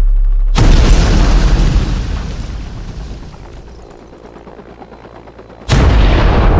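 Two explosion sound effects over a deep low rumble. The first blast hits about half a second in and fades away over a few seconds, and a second blast hits near the end.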